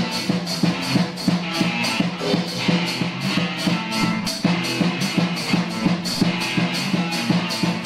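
A teenage rock band rehearsing: a drum kit keeping a steady beat with cymbal strokes about four or five a second, under a repeating low electric guitar riff.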